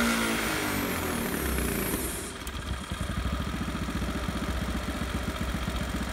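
212 cc single-cylinder small engine on a dyno, running with 32 degrees of ignition advance, winding down in pitch from high revs at the end of a pull. About three seconds in it settles to a steady idle.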